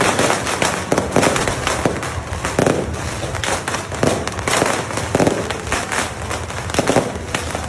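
A continuous barrage of fireworks and beehive rockets: many sharp bangs and crackles in quick succession, with no let-up.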